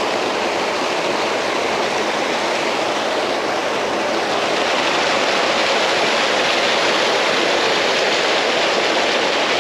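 Water pouring through a pond's overflow outlet and rushing down its channel: a loud, steady rush that grows a little louder about halfway through.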